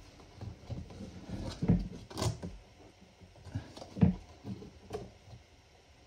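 Irregular clicks, knocks and scrapes of a new USB electrical outlet and its wires being turned and pushed into a wall box by hand. The sharpest knocks come a little under 2 seconds in, just after 2 seconds, and at 4 seconds.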